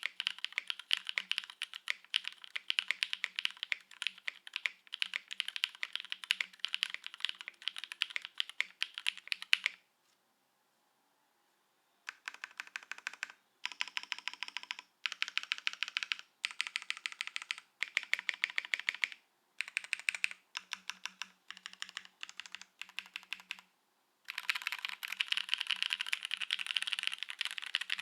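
Typing on a custom mechanical keyboard with lubed linear switches (Cherry MX Black housings with NK Cream stems) on a foamless aluminum plate, under GMK keycaps. Fast, continuous keystrokes for about ten seconds, a two-second silence, then short bursts of keystrokes with pauses between them, and a fast run again near the end.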